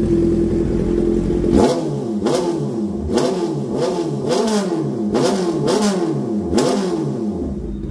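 Honda CB650R inline-four through an IXIL aftermarket exhaust with its silencer removed, idling and then, about one and a half seconds in, revved in quick throttle blips one after another, each rising and dropping back. Very loud, as the pipe is wide open without the silencer.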